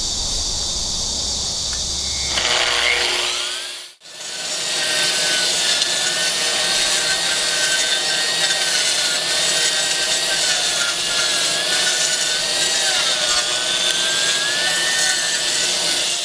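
AGP SM5 2200 W concrete grinder running on a floor-grinding trolley: its motor whine rises about two and a half seconds in, the sound drops out briefly near four seconds, then it runs on steadily with a slightly wavering whine as it grinds concrete.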